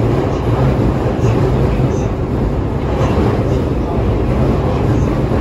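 Beijing Subway Line 2 train running through its tunnel, heard from inside the car: a loud, steady rumble of the moving train.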